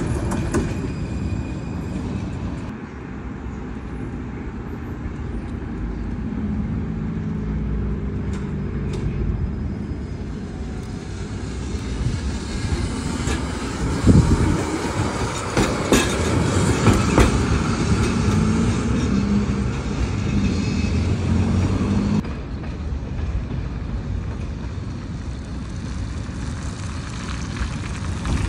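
Trams running on street track: a steady low hum with the clack of wheels over rail joints, loudest about halfway through as a tram passes close by.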